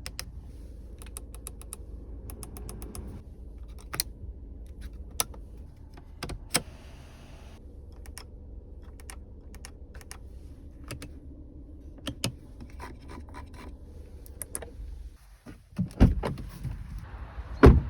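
Switches and buttons in an Audi A4 Avant's cabin clicking one after another, over a steady low hum. A short hiss comes about a third of the way in, and two loud heavy thumps come near the end.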